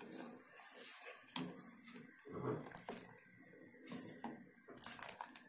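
Metal spoon stirring ginger chai in a stainless steel saucepan, scraping and clinking irregularly against the pan as the tea comes to its final boil on a high gas flame.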